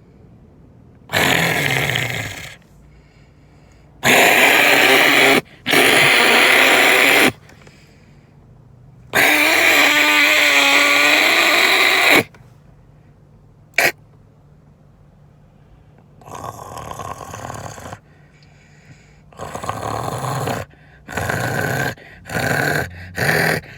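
Loud, harsh vocal noises made in separate bursts of one to three seconds with pauses between, the longest with a wavering pitched voice, then shorter bursts coming quicker near the end.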